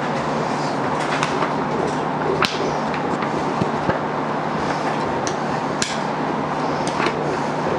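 Steady background hiss with a low hum, over which a book's pages and loose papers are handled: scattered sharp clicks and short rustles a few times a second apart.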